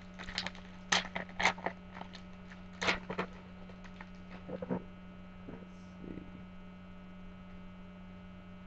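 Crackling and rustling of Upper Deck trading card packs and cards being handled, in quick clusters over the first few seconds and a few more later, over a steady electrical hum.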